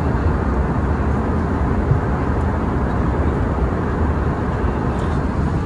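Steady low rumble of airliner cabin noise.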